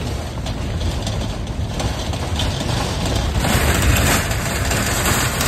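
Pickup truck driving along a dirt track, heard from the open bed: a steady low engine and tyre rumble, with a louder rush of hiss for a second or so about three and a half seconds in.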